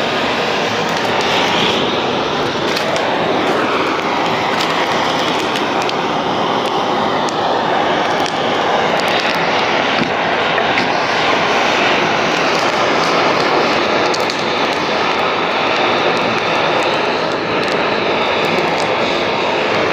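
Electric heat gun blowing a steady stream of hot air onto old laminate to soften its glue so it can be peeled off, with scattered light ticks.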